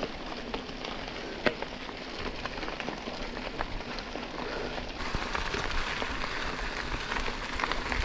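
Mountain bike tyres rolling on a gravel road: a steady crunching hiss with scattered sharp pops of stones, a little louder from about five seconds in.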